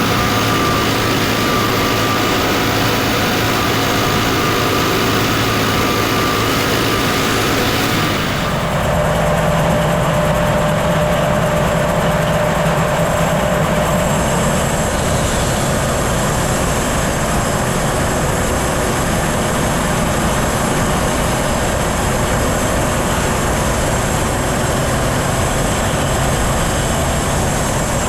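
Engine of a home-made bandsaw mill running steadily under load while its blade saws a cedar log. The sound changes abruptly about eight seconds in, then runs steadily again.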